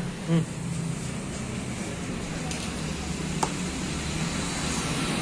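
Steady background noise with a low hum, a short voice near the start and a single sharp click about three and a half seconds in.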